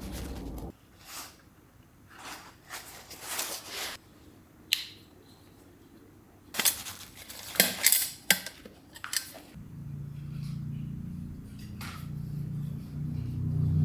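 Metal camping gear being handled, with scattered rustles and a cluster of sharp metallic clinks and clatters. A low steady hum comes in about two-thirds of the way through.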